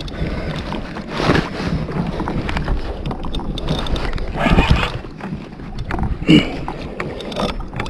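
A large spinning reel (Shimano Saragossa 10000) being cranked under heavy load as an angler fights a big yellowfin tuna from a kayak, over a steady rumble of water and wind. Three short grunts are heard, about a second, four and a half and six seconds in.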